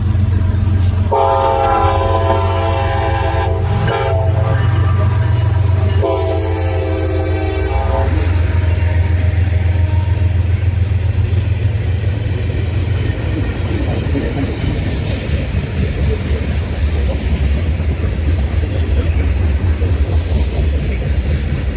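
CSX freight train's diesel locomotive sounding its horn twice, a long blast of about three seconds and then a shorter one, over the engine's steady low drone. The freight cars then roll past with a steady rumble and clatter of wheels on rail.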